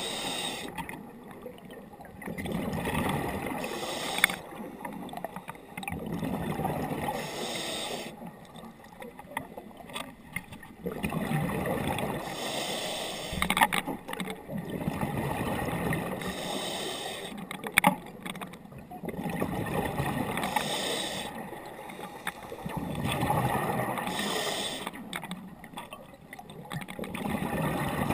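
Underwater breathing through a scuba regulator: bubbling exhalations that swell and fade every few seconds, with a few sharp clicks.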